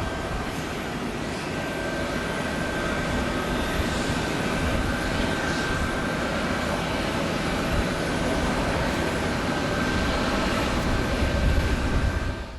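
Jet airliner engines running steadily, with a thin high whine over a broad rush, and wind buffeting the microphone in low rumbles.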